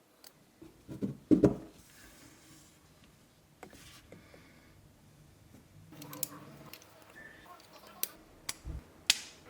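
Plastic model kit parts being handled: two dull knocks about a second in, then a scatter of sharp plastic clicks and snaps in the last few seconds.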